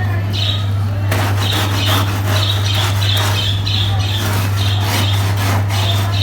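Wet carpet being worked in repeated strokes, about two to three a second, with squeaky rubbing, over the steady hum of a cleaning machine's motor.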